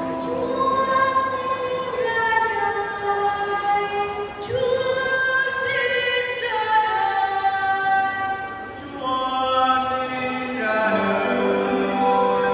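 Church choir singing a Christmas carol in long, held notes.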